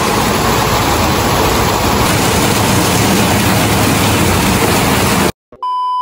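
Very heavy rain pouring down on corrugated metal shelter roofs and the flooded street, a loud steady hiss that cuts off suddenly near the end. Just after, a steady high test-pattern beep tone starts.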